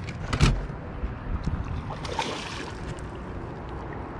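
A heavy thump on the aluminium boat about half a second in, with a few lighter knocks, then a short splash as a hooked largemouth bass thrashes at the surface beside the boat.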